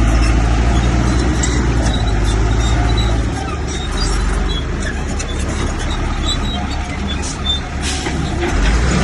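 Diesel engine of a Komatsu bulldozer running under work, a steady deep drone that eases about a third of the way in, with scattered light clicks.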